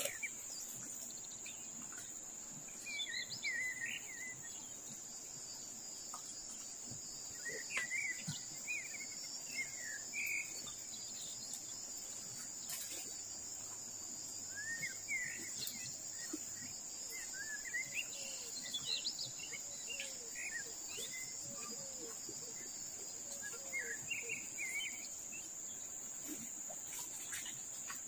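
Steady high-pitched drone of insects, with birds chirping in short scattered bursts. A run of short, low notes repeats about every second in the second half.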